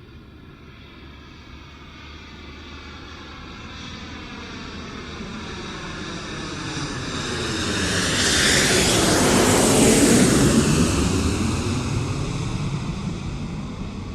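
Jet aircraft flying past overhead: it grows steadily louder, is loudest about ten seconds in with a sweeping, swirling tone, then fades away.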